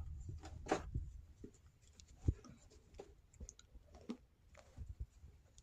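Quiet small room with a few faint scattered clicks and a soft knock about two seconds in.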